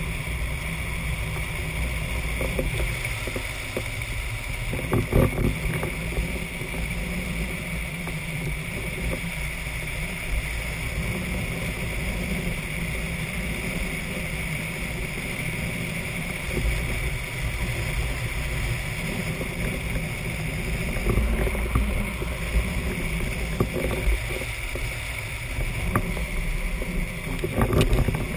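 Drift trike rolling fast downhill on asphalt: a steady rumble of the wheels on the road mixed with wind buffeting the microphone, with a few short knocks from bumps.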